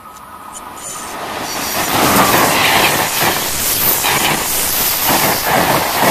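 Amtrak Northeast Regional passenger train, led by an AEM-7AC electric locomotive, passing close at speed. The rushing rail noise swells as it approaches, then holds as a loud roar of wheels on rails from about two seconds in as the locomotive and coaches go by.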